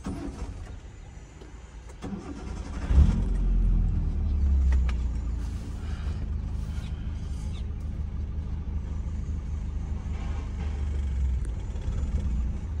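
Hyundai car's engine cranking and catching about two to three seconds in, after stalling, then running steadily with a low hum, rising slightly around four to five seconds in.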